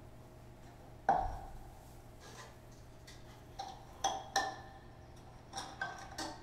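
Sparse light taps and plucks with plant stalks and leaves on a violin and glass bowls, each giving a brief ringing tone. One louder tap comes about a second in, then a cluster of five or so lighter ones in the second half.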